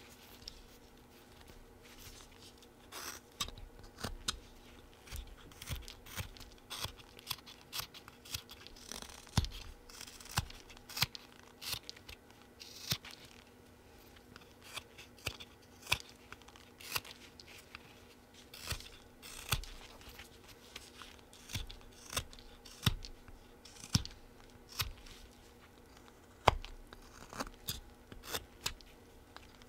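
Folding whittling knife taking short slicing cuts into a small wooden blank. It makes a string of crisp little scraping snicks at an irregular pace of one or two a second.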